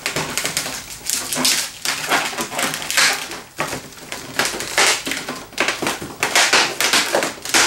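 Inflated 260 latex modelling balloons squeaking and rubbing against each other as they are twisted together, in a repeated series of sharp squeaks and rubs.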